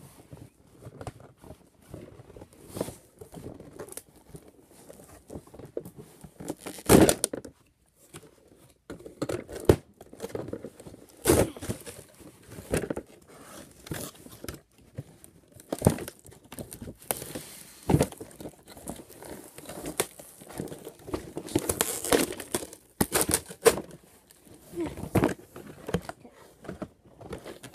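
Cardboard box and plastic packaging being handled and unpacked: irregular crinkling and tearing, with knocks of hard plastic toy parts, the loudest knock about seven seconds in.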